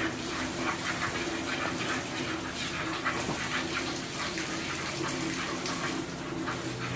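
Milk squirting into a pail in rhythmic spurts, about two or three a second, as a cow is milked by hand. A steady low hum runs underneath.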